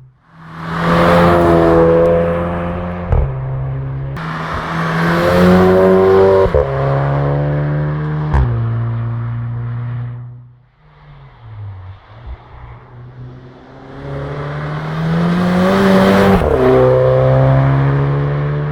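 Volkswagen Golf Mk6's 1.4 TSI turbocharged four-cylinder through a Bull-X exhaust, accelerating hard: the engine note climbs, then drops with a sharp crack at each DSG upshift, the so-called DSG fart. It eases off for a couple of seconds about halfway through, then pulls hard again and ends on another upshift crack.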